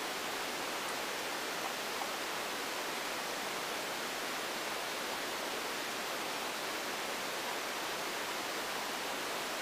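Steady, even hiss with no distinct sound standing out.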